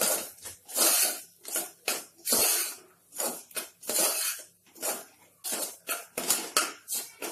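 Metal spoon scraping and stirring broken wheat around the bottom of a pressure cooker as it is roasted in oil and ghee: a rough scrape about twice a second.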